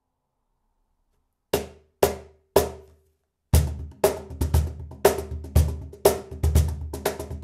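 Schlagwerk X-One cajon played by hand: three single hits about half a second apart, then a steady groove of deep bass strokes and sharp slaps starting about three and a half seconds in.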